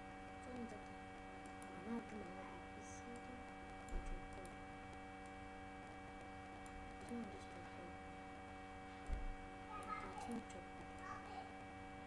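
Steady electrical hum made of several fixed tones, with faint voices in the background now and then and two soft knocks, about four and nine seconds in.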